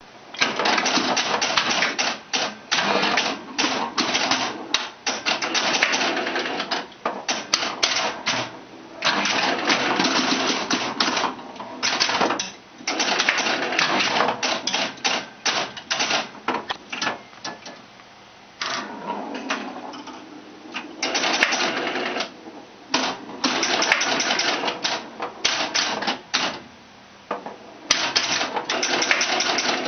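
1974 Williams Star Pool electro-mechanical pinball machine at work: rapid clattering of its relays and score reels in runs of a few seconds, with short pauses between them.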